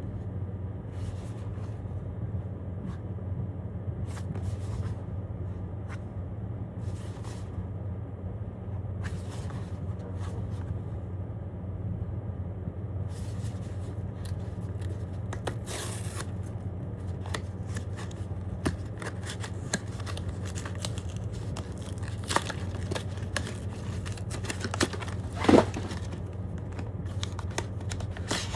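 Blind-box packaging being opened by hand: plastic wrap and cardboard torn, cut and handled, with crinkling, scraping and small clicks that come thicker in the second half and one sharp louder snap about 25 seconds in. A steady low hum runs underneath.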